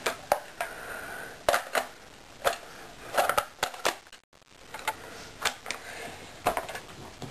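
Irregular light clicks and knocks of hard plastic and metal parts being handled on an electric airsoft rifle, a JLS FN SCAR, with the sound cutting out briefly about four seconds in.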